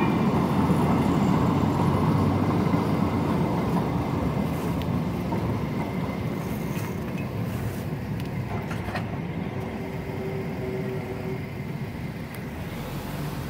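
Siemens Duewag U2A light rail car rolling past, its rumble fading steadily as it moves away.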